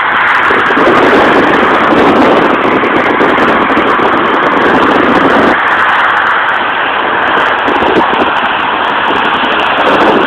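Steady road traffic passing on the bridge, a continuous rush of vehicle noise that is heavier for roughly the first five seconds.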